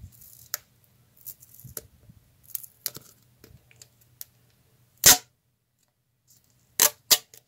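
Crinkling and crackling of a clear-tape-covered paper sticker being peeled from its backing and handled by fingers, with a sharp crack about five seconds in and two more near the end.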